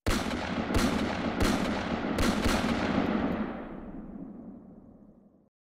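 Gunshot sound effect: five sharp shots in the first two and a half seconds over a dense hiss, all dying away by about five seconds in.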